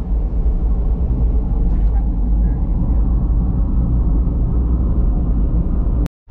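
Cabin noise of a passenger van moving at highway speed, heard from the rear seats: a steady low rumble of engine and tyre noise. The sound drops out for a moment near the end.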